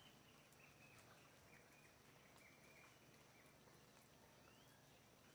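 Near silence: faint outdoor ambience with a string of faint, short, high bird chirps and a few soft ticks.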